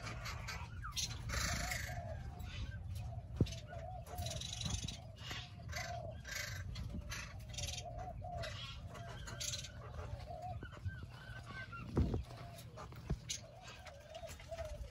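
Doves cooing, a steady run of short repeated coos, with a few higher chirps. A few sharp knocks come through, the loudest about twelve seconds in.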